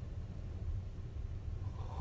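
A sleeping woman snoring: a quieter stretch between snores over a steady low rumble, with the next snore beginning near the end.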